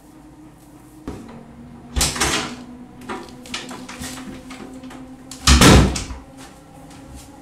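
A wooden door being opened and shut, with clicks from the handle and latch and the loudest thud late on as the door closes.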